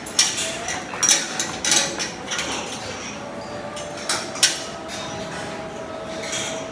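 A run of sharp clanks and knocks, about six in the first four and a half seconds, from a tethered buffalo shifting at its trough in a metal-railed cattle shed, over a faint steady hum.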